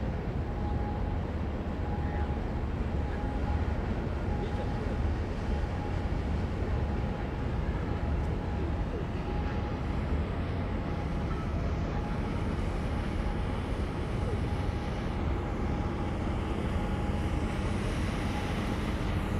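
Steady low rumble of marine engines carried across the harbour water, with a faint whine that comes and goes.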